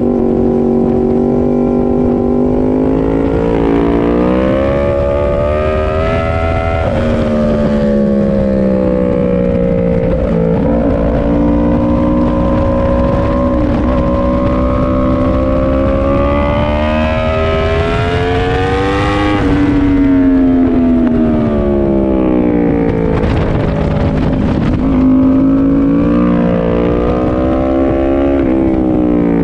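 Inline-four sport bike engine heard onboard at track speed, its revs climbing on the straights and falling back into the corners several times, with the longest climb near two-thirds of the way through. Wind rush runs under the engine.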